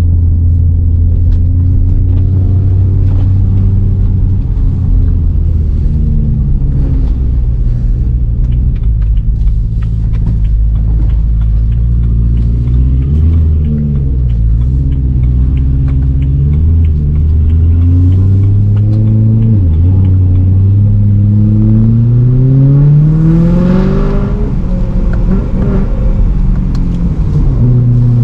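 BMW M3 E92's 4.0-litre V8 under way: a steady drone with a couple of brief dips in pitch, then a long rise in engine pitch over about four seconds as it accelerates, ending in a sudden drop at an upshift, after which it settles back to a steady drone.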